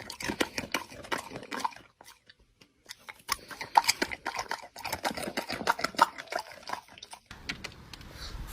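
Animal noises in short clicks and brief bursts, broken by a near-silent gap about two seconds in.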